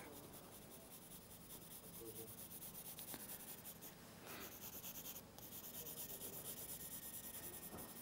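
Graphite pencil shading on sketchbook paper: faint, rapid scratching strokes, about five a second.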